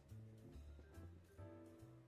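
Quiet instrumental background music with a walking bass line and soft pitched notes.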